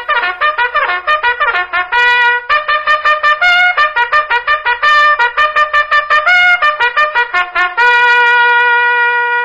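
A trumpet tune played fast, a quick run of short notes that settles near the end on one long held note.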